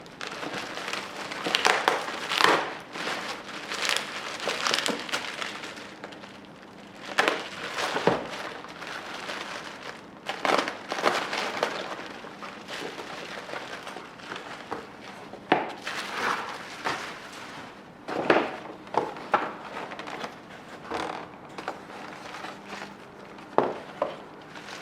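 Plastic packaging crinkling and rustling as wrapped foam airplane parts are handled and unwrapped, with irregular rustles and sharp crackles throughout.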